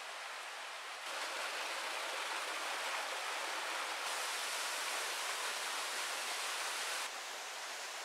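Rushing water: a steady, even rush with no other sounds. It steps up suddenly about a second in and drops back suddenly about seven seconds in.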